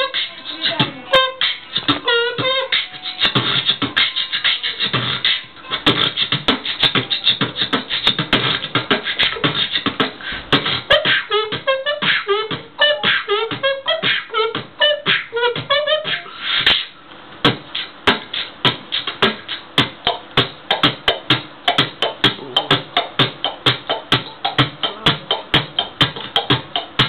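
Beatboxing into a handheld microphone: rapid, rhythmic vocal percussion made with the mouth, with wavering sung tones laid over the beat near the start and again around the middle. In the last ten seconds it settles into a fast, even beat of about three or four strokes a second.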